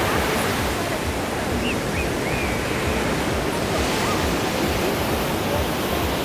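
Ocean surf: a steady, even wash of waves with no distinct breaks, with a few faint, short high-pitched glides about two seconds in.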